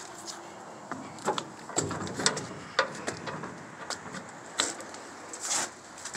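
Footsteps and light handling knocks: scattered soft thumps and clicks, several about half a second apart in the first half, with a few more near the end.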